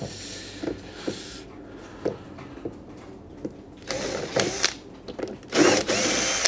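Cordless drill-driver running in short bursts as it backs screws out of a dryer's front panel. There is a brief faint run in the first second, another around four seconds in, and the loudest run near the end, with light clicks of handling between them.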